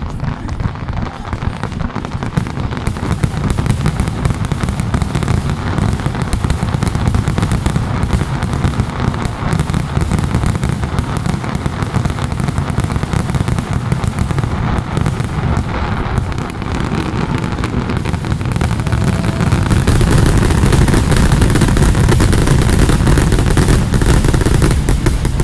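Fireworks display: a dense, continuous barrage of shell bursts and crackle over a deep rolling rumble, growing louder about twenty seconds in.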